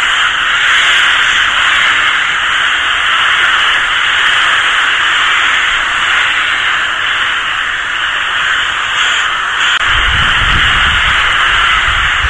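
Rook colony calling, many birds cawing at once so densely that the calls run together into a steady din. A low rumble comes in near the end.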